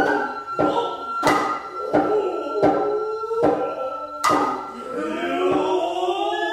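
Noh hayashi music: a nohkan bamboo flute holding a high note, sharp strokes on the tsuzumi hand drums about once a second, and the drummers' long sliding kakegoe calls between the strokes.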